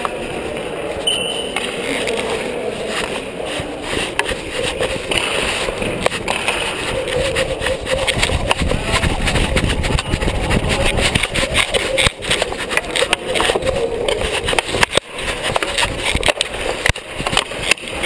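Rubbing and knocking on a body-worn camera strapped at a unicycle rider's crotch, with irregular clacks of hockey sticks and distant shouts echoing in a sports hall. The clacking and knocking get busier about halfway through.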